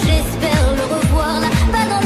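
French pop song: a female voice sings a wavering, drawn-out line without clear words over a steady kick-drum beat, about two beats a second.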